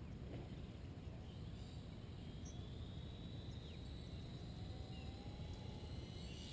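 Outdoor ambience on a small camera's microphone: a steady low rumble of wind on the mic, with faint thin high whistling tones over it and a faint tone rising slowly near the end.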